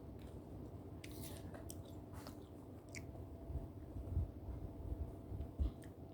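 A person faintly biting and chewing fruit, with a few short, crisp crunches between about one and three seconds in.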